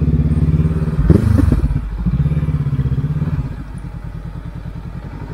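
Honda CB500X's parallel-twin engine running as the motorcycle rolls slowly on a dirt track. About three and a half seconds in, it eases off to a quieter, lower note.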